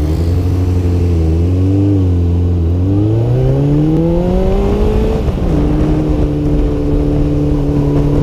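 Motorcycle engine pulling away under the rider: an even note for nearly three seconds, then rising in pitch as it accelerates, dropping at about five seconds as it shifts up a gear, then holding a steady note while cruising.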